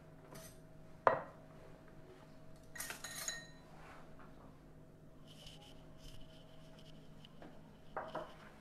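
Kitchen cookware and utensils clattering: a sharp knock about a second in, a short run of ringing metallic clinks around three seconds in, and a few lighter taps near the end, over a faint steady hum.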